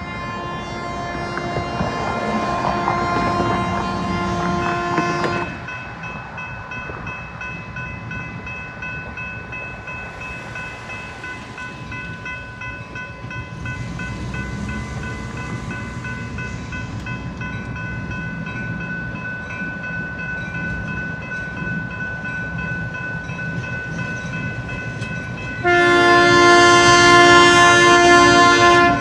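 Freight locomotive horn sounding a long blast, then the railroad crossing bell ringing steadily as the gates come down, over the low rumble of the approaching train. Near the end the horn sounds again, louder and closer.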